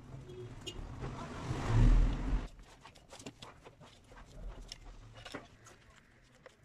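A loud rushing noise with a low rumble swells and cuts off suddenly about two and a half seconds in, then light clicks and scrapes of a screwdriver working the screws on a brush cutter's clutch housing.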